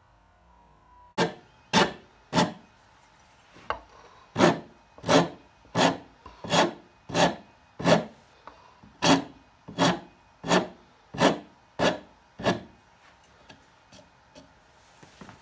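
Wood rasp filing the wooden handle of a vintage Disston hand saw, about fifteen even push strokes at a little under one and a half a second. The strokes start about a second in and stop a few seconds before the end, with a brief break near the middle.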